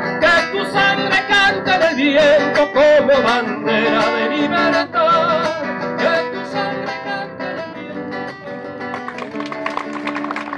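Live acoustic guitar and a woman's singing voice closing a song: long wavering sung notes over strummed chords in the first half, then the chords ring on and gradually fade.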